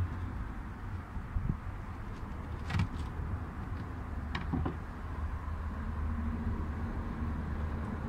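Handling sounds as the fuel pump access cover is pulled off the floor pan: a few light clicks and taps over a steady low rumble.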